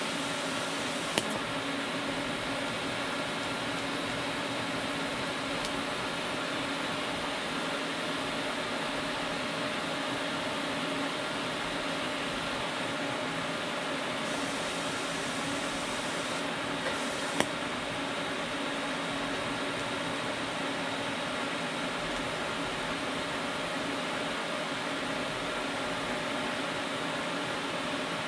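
TIG welding arc from an Everlast 255EXT inverter welder held on a joint between two metal plates: a steady hiss with a constant hum running through it, broken only by a couple of faint clicks.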